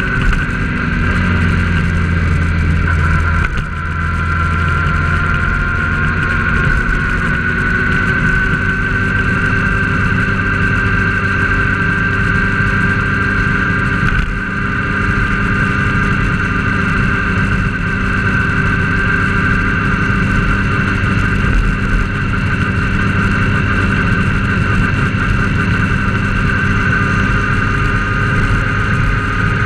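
Road vehicle moving at a steady cruising speed, heard from on board: an engine drone with tyre and road noise and a steady high whine over it.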